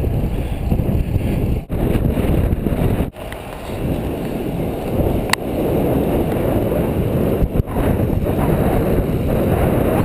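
Wind rushing over the microphone, mixed with road and tyre noise from a road bike riding at about 19–20 mph. The noise is steady, with a few brief drop-outs.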